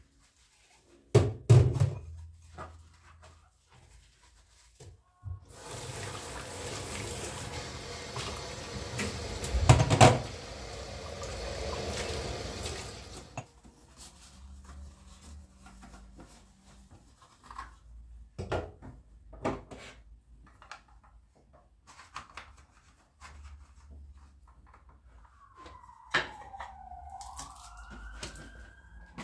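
Household knocks and clatter, with water running for about eight seconds in the middle and a heavy thump partway through it. Near the end comes a high whine that glides up and down.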